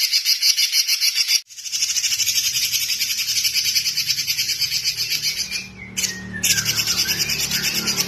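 Red-billed leiothrix (Pekin robin) singing a fast, rapidly pulsing run of high notes with hardly a pause. The song cuts out suddenly for a moment about a second and a half in and dips briefly near six seconds.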